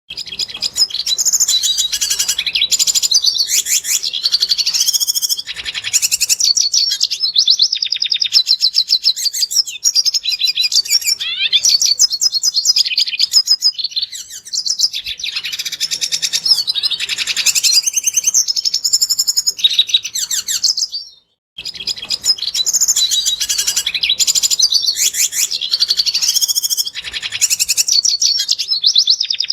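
Red siskin singing: a long run of rapid twittering and trilled chirps, broken by a brief pause about two-thirds of the way through.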